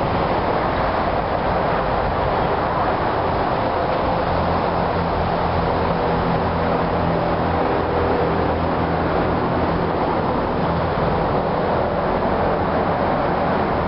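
Diesel freight locomotives approaching, led by a GE CW40-8: a steady engine drone under a continuous rushing noise.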